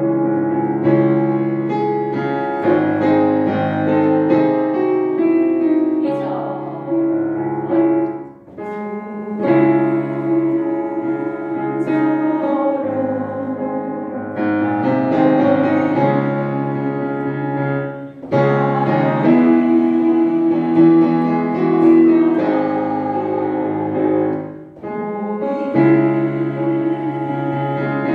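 Piano playing a slow, lyrical Korean art-song (gagok) accompaniment in long phrases, with short breaks between phrases about 8, 18 and 25 seconds in.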